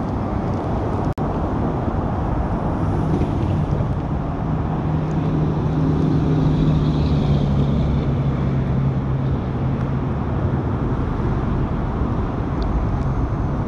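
Steady rushing noise of nearby road traffic, with one engine's low hum standing out for several seconds in the middle.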